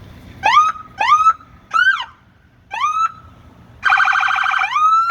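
Police car electronic siren being demonstrated: four short rising chirps, then a loud buzzing electronic horn tone about four seconds in, cut by the siren starting to wind up again near the end.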